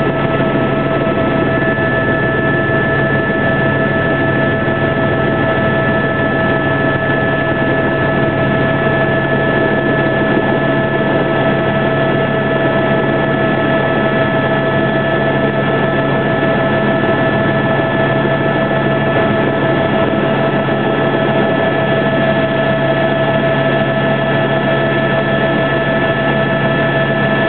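Helicopter running close by: a steady engine whine over a constant rush of rotor and turbine noise.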